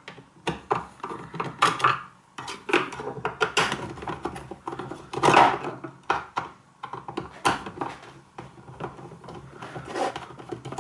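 Screwdriver working on the plastic internals of an electric shower: irregular clicks, taps and scrapes as screws are loosened to free the flow control valve.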